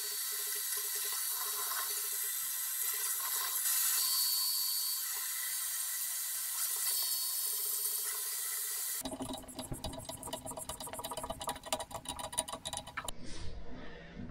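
Pillar drill running as it drills holes into a metal part: a steady hissing whir. About nine seconds in it changes to a rougher, unevenly pulsing sound.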